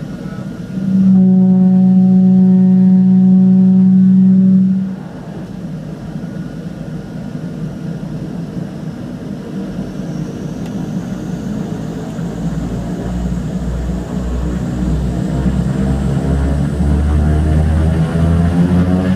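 Twin Otter turboprop engines (Pratt & Whitney PT6A-27s) heard from inside the cabin. A loud, steady droning tone comes in abruptly about a second in and stops after about four seconds. From about halfway the engines spool up, with a high turbine whine rising in pitch and a low propeller throb building, getting louder toward the end.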